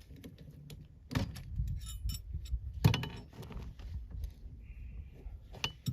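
A 12-gauge shotgun's action being opened after firing: metallic clicks and knocks, the loudest about three seconds in. The fired hull stays stuck in the chamber, and the extractor does not pull it out.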